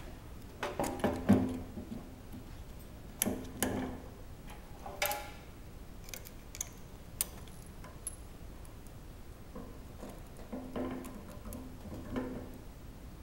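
Scattered metal clicks and knocks of hand tools and mounting bolts as a solenoid directional valve is fitted onto a hydraulic power pack's subplate, the bolts being started with a T-handle Allen wrench. The clicks come in small clusters, some with a short ring, with quiet stretches between.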